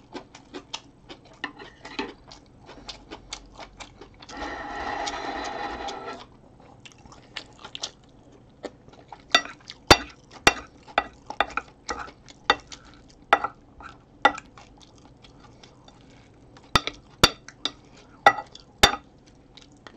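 Wooden spoon clicking and scraping against a ceramic plate while scooping rice, in many sharp separate knocks, with one longer scrape lasting about two seconds a little over four seconds in. Chewing is heard between the knocks.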